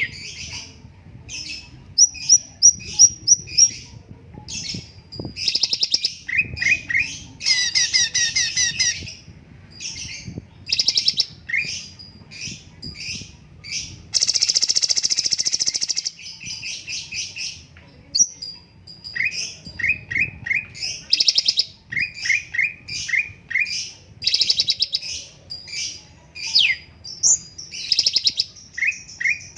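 Cucak cungkok singing a fast, busy song of quick chirps and short falling notes, with a dense rattling trill about halfway through.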